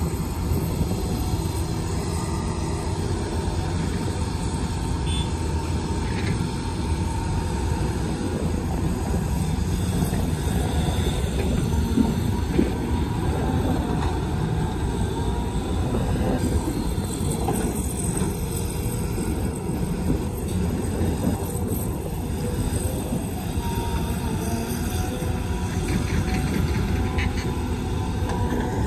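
Cat 323GC hydraulic excavator working: its diesel engine runs steadily under load with hydraulic working noise, a continuous low drone. Two brief knocks come about twelve seconds in.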